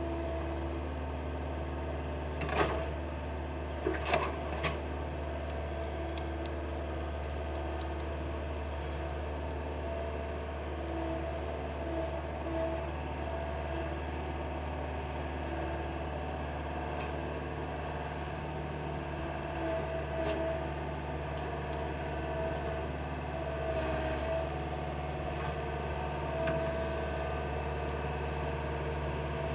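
Excavator engine running steadily as the machine edges down a slope, with a few sharp metallic clanks about three to five seconds in.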